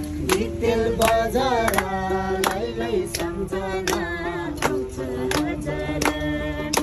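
A group singing a song together, with hands clapping a steady beat about every 0.7 seconds.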